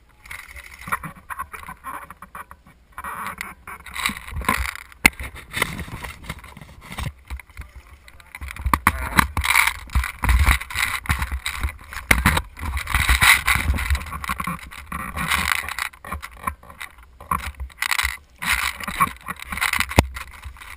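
Handling noise on a GoPro mounted on the side of an airsoft gun: irregular rustling and knocking as the player moves, over a low rumble, with a few sharp clicks.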